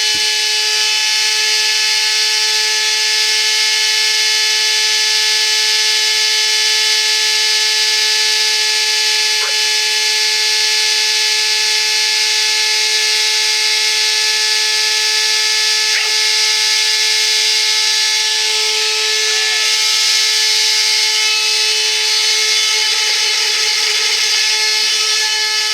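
Vacuum cleaner running with a loud, steady, high-pitched whine made of many held tones. The noise came on as a fault: the machine had gone from making noise to making a much louder one.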